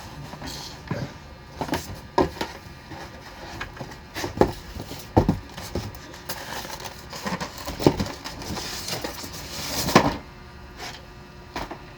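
Plastic knocks and clicks of a collapsible folding washing machine being handled and folded back down. The knocks are irregular, with a few louder ones about five, eight and ten seconds in.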